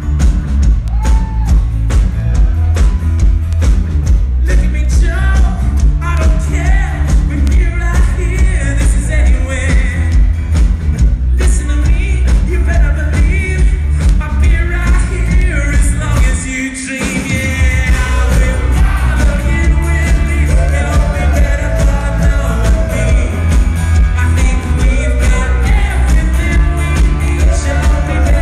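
Rock band playing loud live with a lead singer, heavy bass and drums. The bass cuts out briefly past the halfway point before the full band comes back in.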